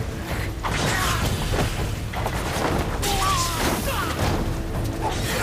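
Anime sword-fight soundtrack: dramatic film score mixed with sword slashes, blade impacts and crashes.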